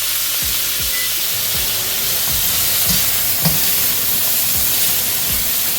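Pork ribs sizzling in oil and soy sauce in a wok, a steady hiss with a couple of light clicks about three seconds in.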